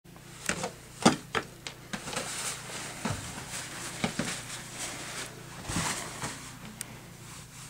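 Scuffling, slaps and knocks of two people grappling in a staged fistfight, with a heavier thump about six seconds in as one of them goes down onto the carpeted floor.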